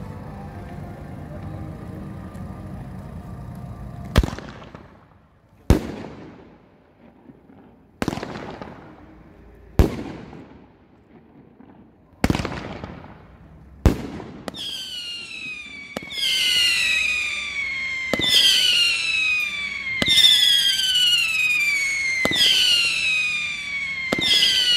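Fireworks going off: six sharp, loud bangs, each echoing away, a second and a half to two and a half seconds apart. From about halfway a run of shrill whistles follows, falling in pitch, about one every two seconds, each starting with a pop.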